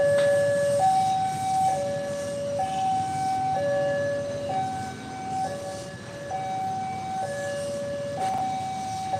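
Two-tone electronic warning siren alternating between a high and a low pitch, switching about once a second, over a low rumble of traffic.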